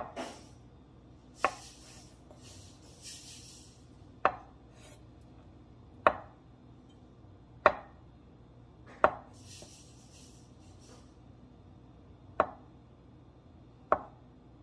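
Chef's knife slicing thin slices off an avocado half and knocking on a wooden cutting board. There are about eight sharp knocks, spaced unevenly a second or two apart, with a faint hiss twice in between.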